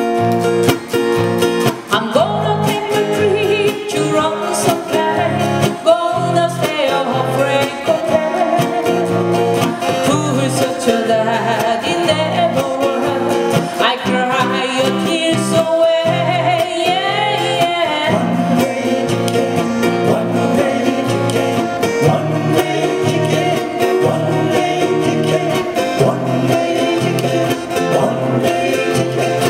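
Live acoustic band: several steel-string acoustic guitars strummed in a steady rhythm, with a woman and men singing into microphones.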